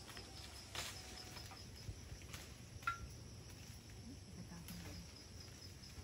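Faint countryside ambience: insects droning steadily at a high pitch, with a few light rustles and snaps of leaves and branches in the rambutan tree being picked. A single short high chirp comes about halfway through.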